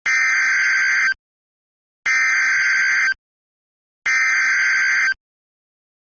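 Emergency Alert System header data tones: three identical harsh, buzzing bursts of digital data, each about a second long and about a second apart, sent to announce a National Weather Service warning.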